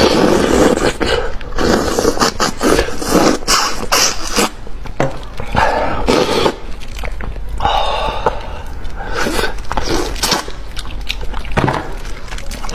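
Close-miked eating of a large fish head: a steady run of wet chewing, lip smacking and sucking sounds.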